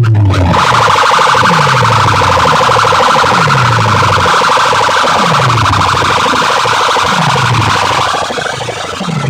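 Large DJ sound system playing a siren-effect track at high volume: a steady, buzzing siren-like tone over repeated falling bass sweeps, roughly one a second. The siren tone fades out near the end.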